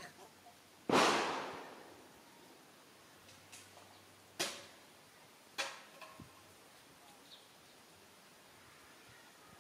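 Three sudden sharp cracks or bangs over a faint background hiss. The first and loudest comes about a second in and rings out for about a second; the other two come about four and a half and five and a half seconds in, with a few lighter clicks between them.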